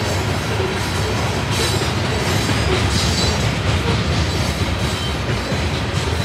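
Loaded rock-train hopper cars rolling past at steady speed: a continuous rumble and clatter of steel wheels over rail joints, with a faint high wheel squeal.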